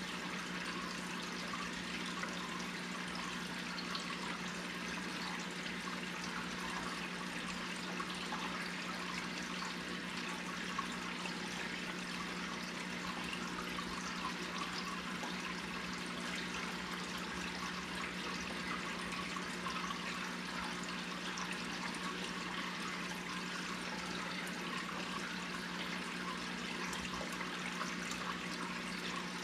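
Aquarium filter and aeration running: a steady trickling, bubbling wash of water with a constant low hum underneath.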